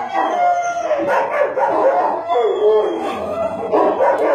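Dog howling, a series of drawn-out cries that bend up and down in pitch.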